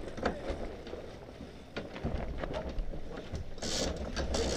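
Sailboat sheet winch ratcheting with a rapid clicking of its pawls as a line is trimmed, with scattered knocks of gear in the cockpit. Two short rushes of hiss come near the end.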